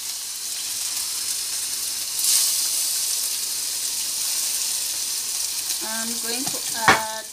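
Salmon pieces sizzling as they fry in hot oil in a nonstick pan, the sizzle swelling about two seconds in as a second piece goes in. A brief voice and a sharp knock come near the end.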